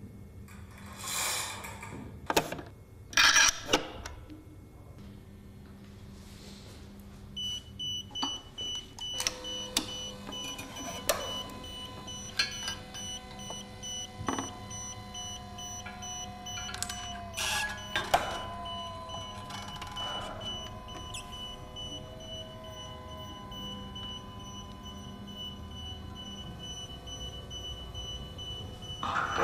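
Sharp clicks and knocks of plastic and metal parts being handled as a ceiling hoist unit is hung on its rail trolley's suspension rod. From about a quarter of the way in, a steady high thin electronic tone runs underneath.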